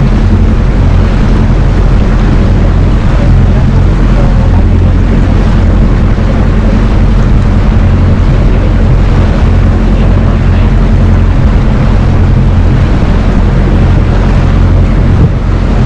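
Zodiac boat's outboard motor running steadily under way: a loud, even low drone, with wind and water rushing over it.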